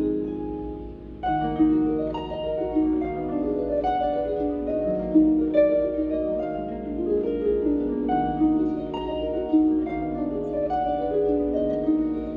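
Concert pedal harp played solo: a continuous flow of plucked notes and arpeggiated chords, each note ringing on as the next is plucked. The playing thins out briefly at the start, then comes back strongly about a second in.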